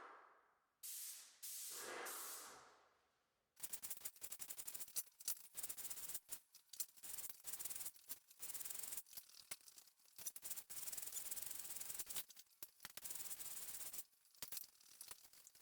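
Graco Magnum Project Painter Plus airless paint sprayer spraying paint, starting about three and a half seconds in: a rough, crackling hiss with brief breaks near the end. A short breathy sound comes before it.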